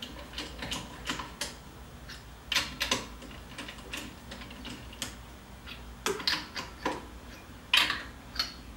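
Irregular metallic clicks and clinks, in short clusters, from lug nuts being snugged onto the wheel studs of a C7 Corvette front wheel in a star pattern.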